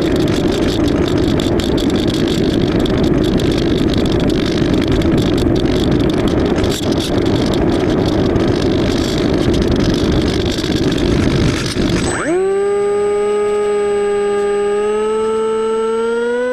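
Steady rush of wind and electric motor noise from an AXN Floater-Jet RC plane in flight. About twelve seconds in, the rush cuts off abruptly and a clean, steady whine takes over, creeping slowly upward in pitch.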